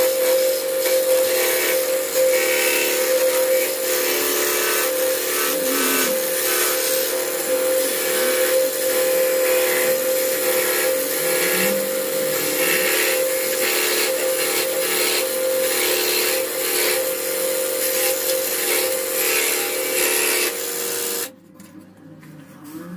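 Scroll saw running with a steady hum and hiss as its blade cuts a disc out of a wooden board; the sound drops off sharply about 21 seconds in.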